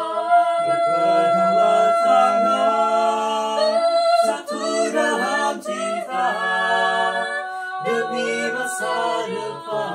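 Mixed a cappella vocal quartet of two men and two women singing in close harmony without accompaniment. They hold long chords that shift every second or so, with a short break about four seconds in.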